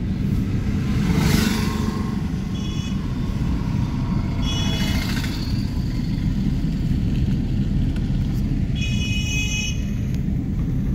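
Steady road and engine rumble inside a moving car, with a high-pitched vehicle horn tooting three times, the last for about a second near the end.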